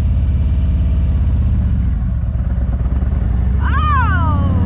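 Motorcycle engine running steadily at low revs, with a fast pulsing beat. Near the end a person's voice slides down in pitch.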